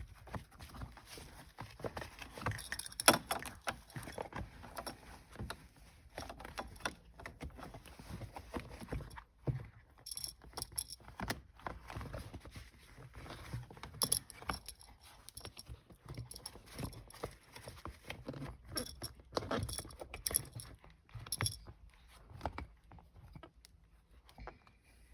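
Hands prying up and lifting out a car's shift boot and its plastic trim: irregular clicks, snaps and rustling of plastic and boot material.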